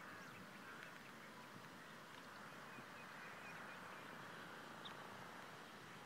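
Faint outdoor ambience with distant bird calls: a low steady hiss with a few short, faint high chirps.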